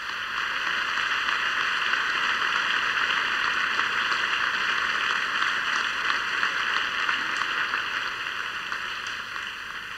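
Audience applauding steadily in a concert hall, fading away near the end.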